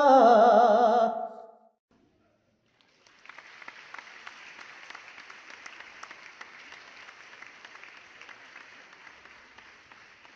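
An operatic singing voice holds its final note with a wide vibrato and cuts off about a second and a half in. After a short silence, applause starts and runs steadily, fading near the end.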